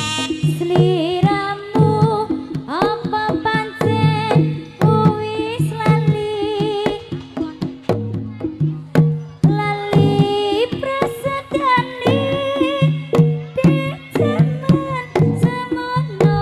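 Live jaranan music. Hand drums beat a quick pattern over a regular low pulse, with a wavering melody line on top.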